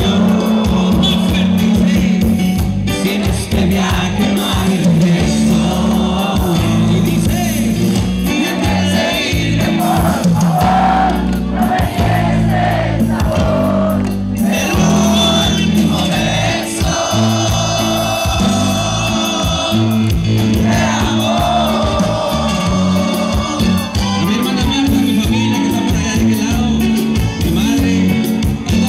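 A live band playing, with a male lead singer singing over bass, drums and keyboards, heard through the PA from the audience.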